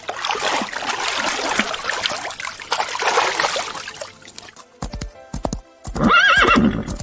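Horse whinnying near the end, a loud wavering call that falls in pitch. Before it there is a rough noisy stretch, then a run of sharp rhythmic knocks.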